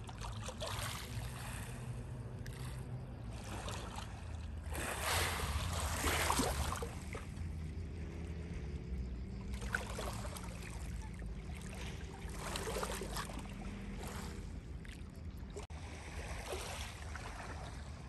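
Lakeshore ambience: small waves washing on a pebble beach, with wind rumbling on the microphone and a faint steady low hum, louder swells of wash about five and ten seconds in.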